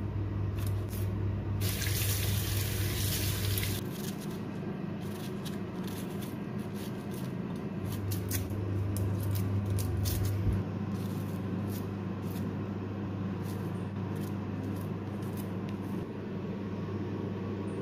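Onion and garlic being peeled with a small knife over a stainless steel sink: scattered crackles and light clicks of papery skin and blade. A brief rush of running tap water comes about two seconds in, over a steady low hum.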